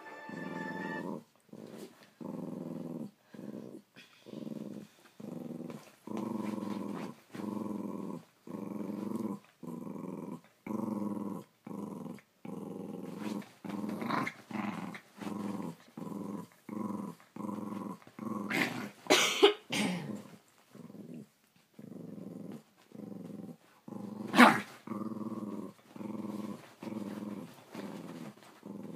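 Small dog growling in repeated short growls, about one a second. The growling is broken by a brief cluster of sharp, louder outbursts about two-thirds of the way in, and another a few seconds later.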